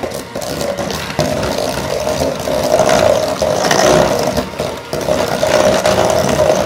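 Cordless electric hand mixer running steadily, its wire beaters whirring through cookie dough and rattling against a stainless steel bowl while creaming butter, sugar and eggs.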